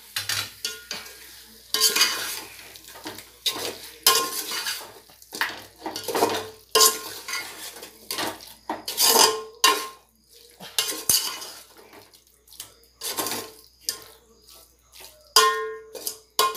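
Long metal ladle scraping and clanking against a metal cooking pot while chicken pieces are stirred into thick onion-tomato masala. The strokes come irregularly, about one a second, several with a brief metallic ring.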